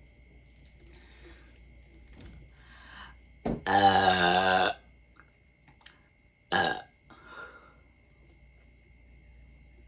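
A woman's loud burp, pitched and drawn out for about a second, brought up by drinking Sprite. It is followed a couple of seconds later by a short second burst.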